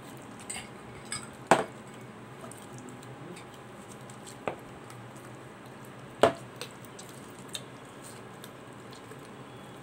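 Knife and hands deboning a raw whole chicken on a cutting board: a few sharp knocks of the knife, the loudest about one and a half seconds in and again about six seconds in, with soft handling sounds between.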